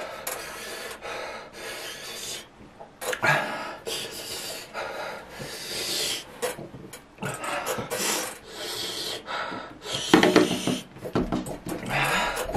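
A man panting hard through an open mouth, a run of loud, uneven hissing breaths in and out, with a louder voiced breath about ten seconds in: a reaction to the burn of an extremely hot chili chip.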